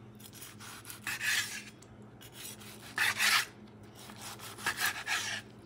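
A large knife sawing through a seared, grill-marked ribeye steak on a wooden cutting board, in three separate strokes about a second, three seconds and five seconds in.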